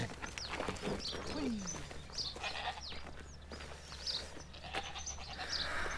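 Goat bleating.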